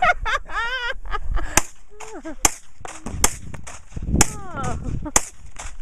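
A gun fired five times, sharp cracks about a second apart, with voices calling out between the shots.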